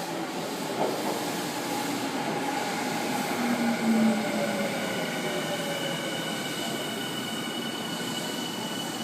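Electric commuter train pulling into the platform, its motor whine falling in pitch as it slows. A high steady squeal sets in about halfway through, with a knock about a second in.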